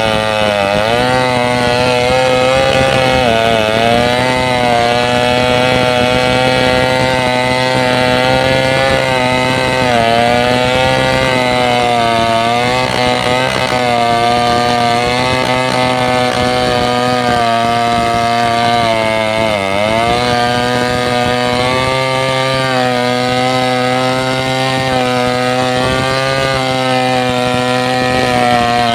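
Two-stroke chainsaw running at high revs, cutting wood. Its pitch sags briefly several times as the chain bites under load, then recovers.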